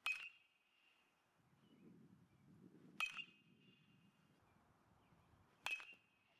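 Metal baseball bat striking a ball three times, each hit a sharp ping with a brief ring, the first right at the start, then about three seconds and two and a half seconds apart.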